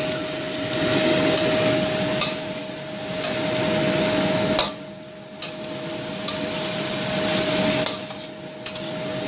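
Sautéing cabbage and herbs frying in a pan, with a steady sizzle and a spatula clicking against the pan several times, over the steady hum of a kitchen exhaust fan. The sizzle drops away for about a second near the middle.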